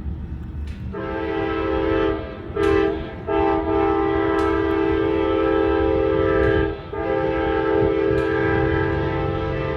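Amtrak locomotive's multi-chime air horn sounding four blasts: a long one, a short one, then two long ones separated by a brief gap. A low train rumble runs underneath.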